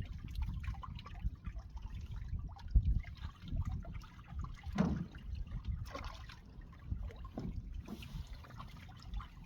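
Sea water lapping and trickling around a floating fishing platform, under a steady low rumble, with scattered small knocks and splashes and one louder knock about halfway through.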